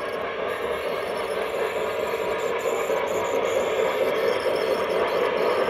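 O-gauge model steam locomotive and its freight cars rolling along three-rail track, a steady rumble of wheels and mechanism that grows gradually louder as the train approaches.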